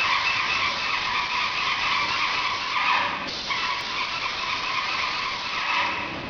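Airless paint sprayer gun hissing steadily as it sprays paint, with a brief break about three seconds in.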